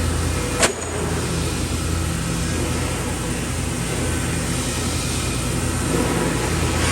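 Electric arc welding on thin 2 mm pipe: a steady hiss over a low machine hum, broken by one sharp click about half a second in.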